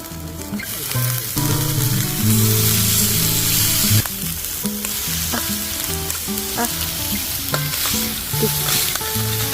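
Food sizzling and frying in a hot pan over a campfire, the sizzle swelling about half a second in, with a few light clicks of utensils. Soft background music plays underneath.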